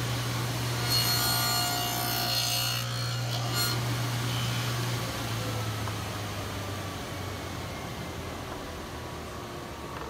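Grizzly cabinet table saw with a dado blade running, cutting a quarter-inch-deep dado across a cherry board. The loud, grainy cut lasts from about one second in to nearly four seconds, and then the saw hums on steadily with no load.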